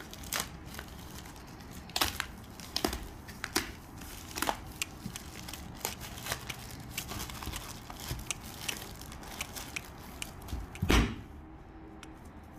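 A plastic mailer bag being torn open and crinkled by hand, in irregular sharp crackles and rips. There is a louder, deeper thump near the end.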